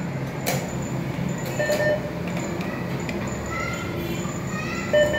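ATM at work: a steady mechanical hum, a sharp click about half a second in, and short electronic beeps at about two seconds and again near the end, the last the loudest.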